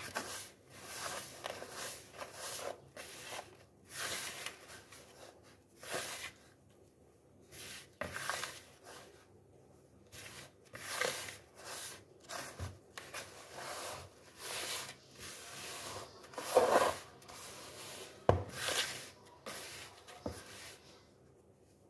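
A hand working a crumbly mix of flour, sugar and egg in a plastic bowl: irregular rubbing, rasping strokes about once a second, with a couple of louder knocks in the second half.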